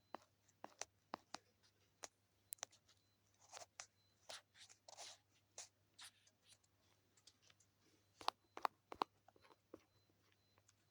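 Faint short scratching strokes and sharp taps of someone drawing, with a cluster of louder taps about eight to nine seconds in.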